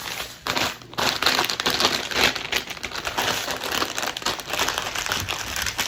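Plastic packaging being handled and crumpled: a dense, continuous crinkling that starts in short flurries and runs steadily from about a second in.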